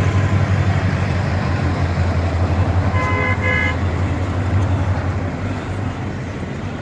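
A train's steady low rumble, with two short horn toots in quick succession about three seconds in.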